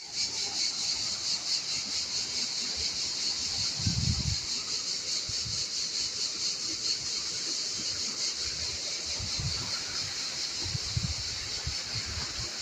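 A steady high-pitched buzzing drone with a fine rapid pulse throughout. Irregular low thumps come and go beneath it, the strongest about four seconds in.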